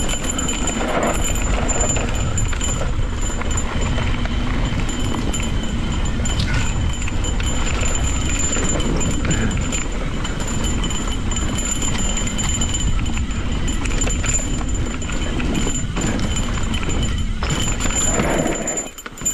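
Cannondale Scalpel Carbon SE 1 full-suspension mountain bike descending rough dirt trail: tyres rumbling over rocks and roots, the bike rattling and clattering with many small knocks. Near the end the noise drops off as the bike slows to a stop.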